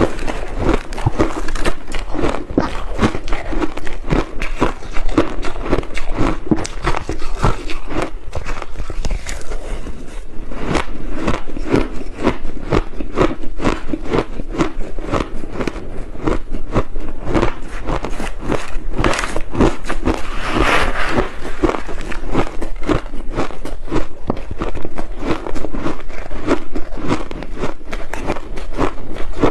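Close-miked chewing of crushed ice: a fast, unbroken run of crisp crunches and crackles as mouthfuls are bitten. Twice, past the middle, a longer rasping scrape as the metal spoon digs into the ice in the plastic pot.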